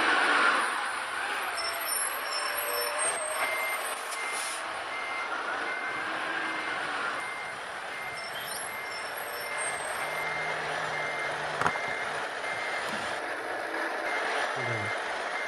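Truck reversing alarm beeping steadily at one high pitch, about twice a second, starting a few seconds in, over a steady background hiss.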